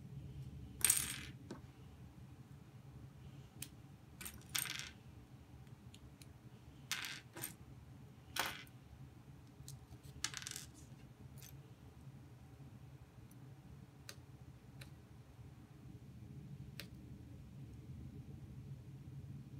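Plastic LEGO pieces clacking as a model is pulled apart and the pieces set down: a scatter of sharp clicks through the first half, then only faint ticks, over a low steady hum.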